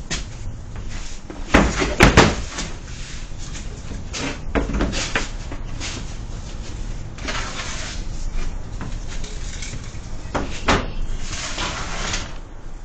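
A series of sharp knocks and bangs, a cluster of three about two seconds in, more near five seconds and one near eleven seconds, with stretches of scraping or rustling noise between them.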